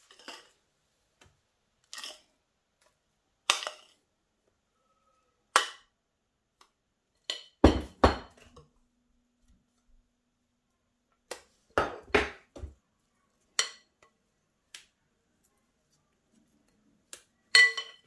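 A utensil knocking and scraping against a glass bowl as thick mousseline cream is scooped out and dropped onto puff pastry: scattered short clinks and knocks with pauses between, the loudest cluster about eight seconds in.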